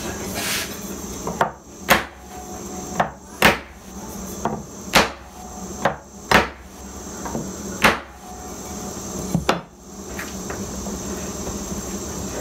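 Sharp knocks of a tool on wood, about nine at uneven intervals, as a clamped guitar body is worked on. A faint steady hum runs underneath.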